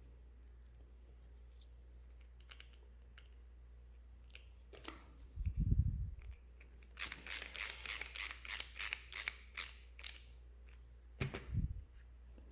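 Small plastic and metal parts of a toy ghost trap being handled during a wheel-kit install: a low bump, then a quick run of about a dozen sharp clicks lasting about three seconds, then another bump near the end.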